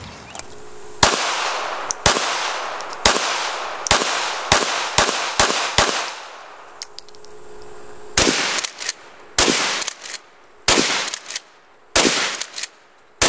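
Gunshots fired at a laptop, nearly twenty sharp reports in an irregular string, each with an echoing tail. The shots come about one a second at first, pause for roughly two seconds midway, then come faster and more unevenly.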